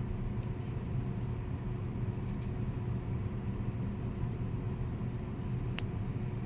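Steady low background hum, with a few faint clicks and one sharper click near the end as small wire leads and tubing are handled.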